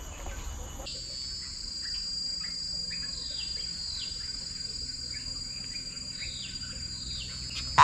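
Forest insect chorus of crickets, a steady high-pitched shrill that shifts about a second in, with a few short falling bird chirps over it.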